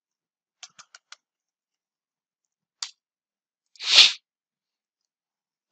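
Computer mouse clicks: a quick run of four faint clicks, then a single click, followed about four seconds in by a louder short hissing puff of breath-like noise.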